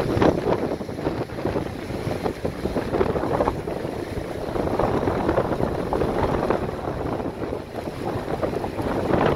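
Whitewater River in flood: a loud, continuous rush of churning water that swells and eases unevenly, mixed with wind buffeting the microphone.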